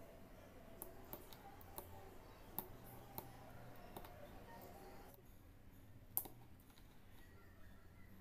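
Faint, scattered clicks of a fine needle and small beads knocking together as beads are hand-stitched onto fabric in an aari embroidery frame, the loudest click about six seconds in, over a faint low hum.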